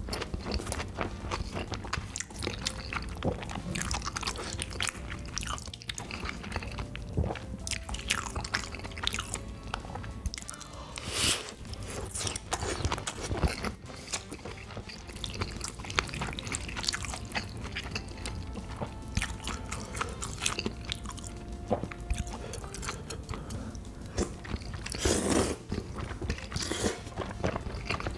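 A person chewing and biting soft, saucy food (spicy rice cakes, fish cake and sausage), with many wet mouth clicks and a couple of louder, longer mouth sounds.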